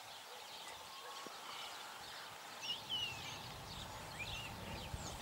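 Wild birds singing outdoors: short whistled chirps and gliding notes, the clearest about three seconds in and again a little after four seconds, over a faint low rumble that starts partway through.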